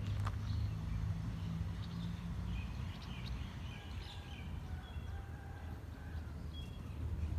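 Birds chirping in short calls over a steady low rumble of outdoor background noise.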